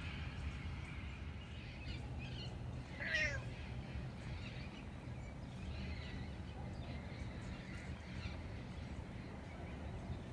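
Neighbourhood birds chirping and calling on and off, with one louder call about three seconds in that slides down in pitch, over a steady low background rumble.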